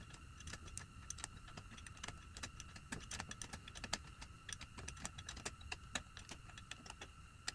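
Quiet, irregular metallic clicking of a hand wrench turning the clutch mounting nuts on an Allis-Chalmers WD45, several small clicks a second, over a faint steady high whine.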